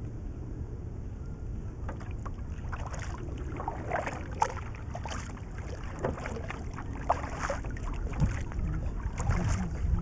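Double-bladed kayak paddle strokes splashing and pulling through the water, starting about two seconds in, over a steady low wind rumble on the boat-mounted camera's microphone.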